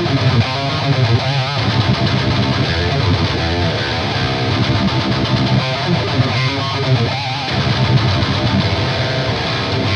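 Heavily distorted electric guitar playing a metal riff through the Fortin Nameless amp plugin, with the plugin's power-amp section on, into the power amp of a Randall Satan tube head. The low notes chug, and a few held notes are bent with vibrato.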